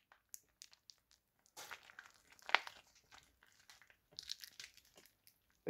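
Faint crinkling and crackling of a plastic bag as pulled chicken is squeezed out of it, with scattered small clicks and one louder crack about two and a half seconds in.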